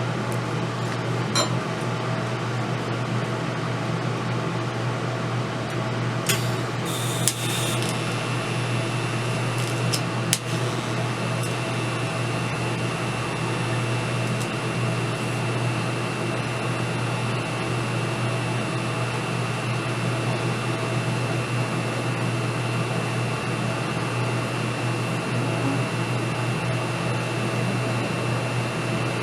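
Steady electrical hum of a TIG welder. About seven seconds in there are a couple of short hissing crackles, and then a steady high-pitched whine holds, as of the arc struck and held during welding.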